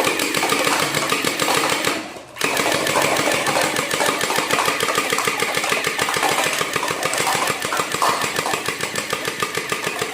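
Battery-powered toy gun firing on full auto: a fast, steady mechanical rattle, broken once by a short pause about two seconds in.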